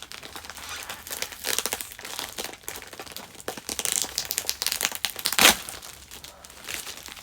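Packaging being crinkled and pulled out of a mailed package, a dense run of rustling and crackling with one sharp, loud crackle about five and a half seconds in.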